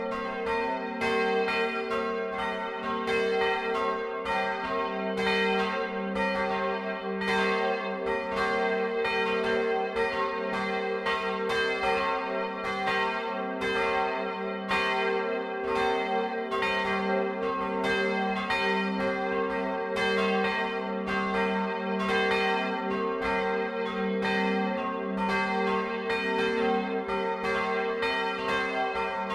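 Church bells pealing: several bells ringing together in a steady, overlapping stream of strikes, with their hum carrying on underneath.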